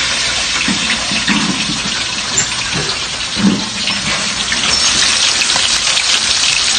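Tilapia frying in hot oil in a wok: a loud, steady sizzle, with more crackling spatter in the last couple of seconds.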